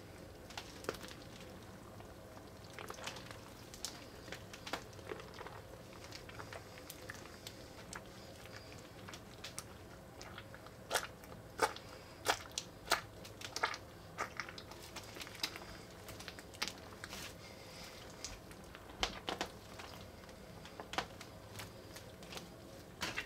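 Clear slime packed with Orbeez water beads being squeezed and kneaded by wet hands: irregular wet crackling and clicking. The clicks are sharpest in a cluster about halfway through and again later on.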